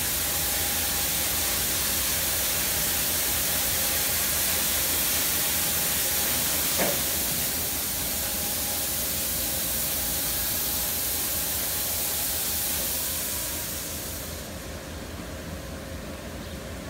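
Oasis XP touchless automatic car wash spraying pre-soak onto an SUV: a steady hiss of high-pressure nozzles with a faint steady tone from the machinery underneath. The hiss eases off about fourteen seconds in.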